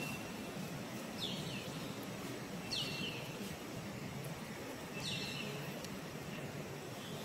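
A bird calling three times, short high calls that each fall in pitch, a second or two apart, over a steady outdoor background hum.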